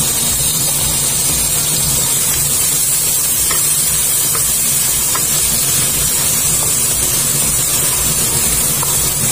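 Chopped tomato, shallots and garlic sizzling in hot oil in a pan, with a few light scrapes of a wooden spatula stirring them. A steady low rumble runs underneath.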